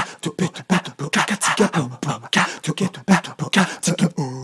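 Beatboxing: a man's mouth percussion in a quick steady rhythm, layered with short sung bass syllables in an a cappella vocal loop built on an iPhone looper app. Near the end a voice starts sliding upward on a held note.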